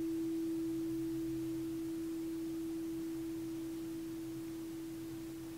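Quartz crystal singing bowl ringing out with a single steady, pure tone that slowly fades.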